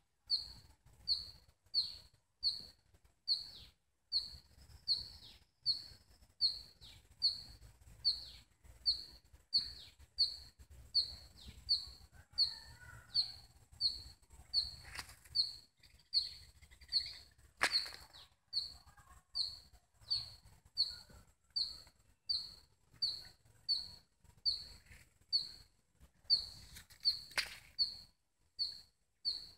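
A bird repeating one short, high chirp at an even pace, about three calls every two seconds. Two sharp knocks, one a little past halfway and one near the end.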